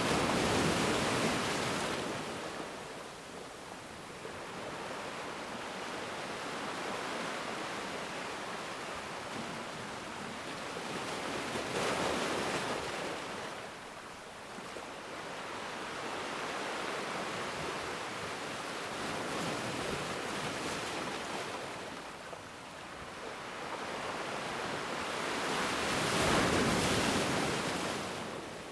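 Sea waves washing onto a shore, swelling and easing three times, with a steady surf hiss between the breakers.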